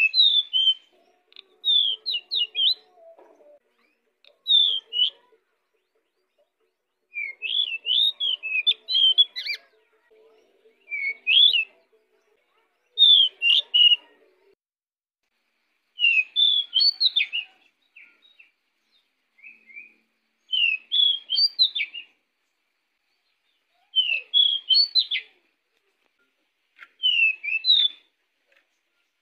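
Pied bushchat (decu) singing prolifically: short, rapid phrases of sweet, sliding whistled notes, repeated about every two to three seconds with brief pauses between them.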